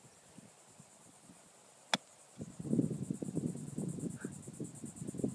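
A single sharp crack about two seconds in: a golf driver's head striking the ball. After it comes a low rumbling noise on the microphone, and insects buzz high and steady in a fast pulse.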